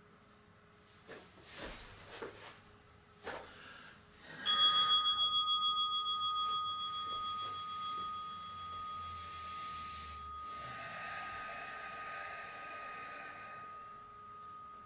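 A few soft knocks and rustles of a person lying down on a yoga mat. Then, about four and a half seconds in, a singing bowl is struck once; it rings with a wavering pulse and slowly fades, marking the start of the relaxation.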